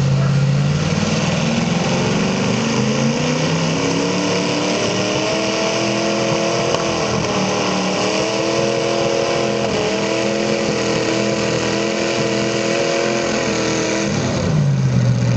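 V-8 engine of a mini rod pulling tractor running hard under load on a pull. Its pitch climbs over the first few seconds, holds high and steady, then drops sharply near the end as the throttle comes off.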